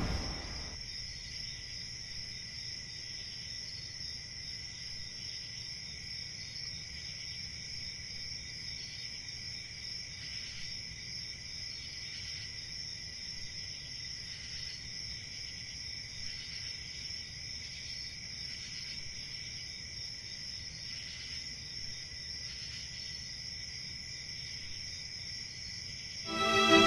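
Steady chorus of crickets, a continuous high-pitched trill with a faint pulsing.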